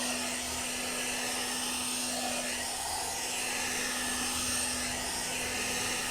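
Hair dryer brush running steadily on its middle setting: a constant rush of blowing air over a steady motor hum.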